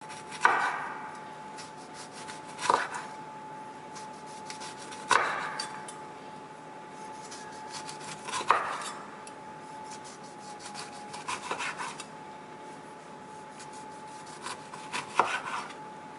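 Chef's knife slicing through a lemon on a bamboo cutting board. Five sharp knocks of the blade on the board come a few seconds apart, with small clicks and scrapes between them.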